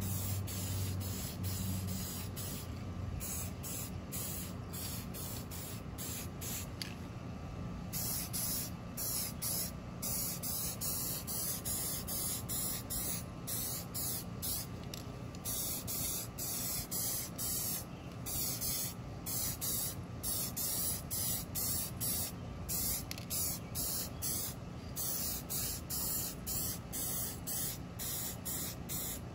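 Aerosol spray-paint can hissing in short bursts as red colour coat is laid over a primed pressed-steel toy truck cab. There are longer sprays at first, then many quick on-off bursts.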